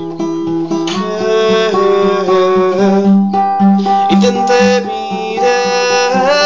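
Acoustic guitar strummed steadily under a man's held, sliding sung notes, a stretch of the melody without clear words.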